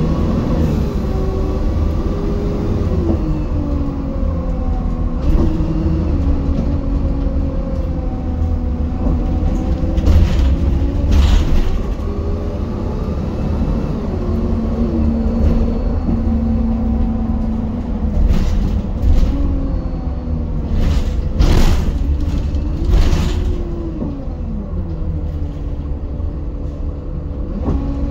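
Inside an Optare Solo single-deck bus under way: the diesel engine's note rises and falls several times through acceleration and gear changes over a steady low rumble. A few short knocks or rattles come through, around a third of the way in and again in the last third.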